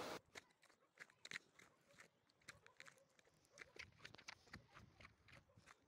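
Near silence, with faint, irregular crunches of footsteps on loose stony ground.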